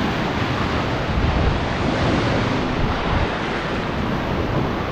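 Wave-pool surf washing up a shallow beach entry, a steady rushing wash of water, with wind buffeting the microphone.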